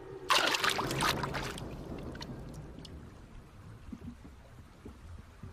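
A sudden rush of water about a third of a second in, lasting about a second and then fading: a mata-mata turtle's suction strike as it gulps in a fish.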